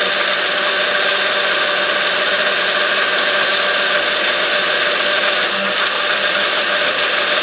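Blender with a stainless-steel jar running steadily on a low setting, emulsifying a vinaigrette as olive oil is slowly poured in through the lid opening.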